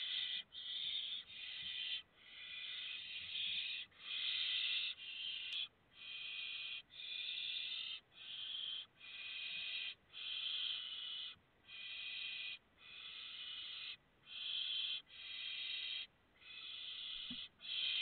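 Barn owl chicks giving their rasping, hissing begging calls (the 'snoring' food call), one after another about once a second with short gaps, several chicks overlapping. It is the call they use to beg for prey during a feeding visit by an adult.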